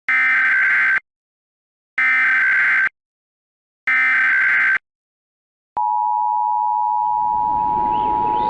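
Emergency Alert System SAME header: three short bursts of warbling data tones. Then, about six seconds in, the EAS two-tone attention signal starts and holds steady, with a rising sound fading in beneath it near the end.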